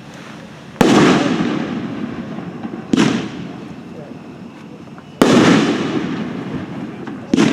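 A nine-shot firework cake firing: four loud booms about two seconds apart, each trailing off in an echo.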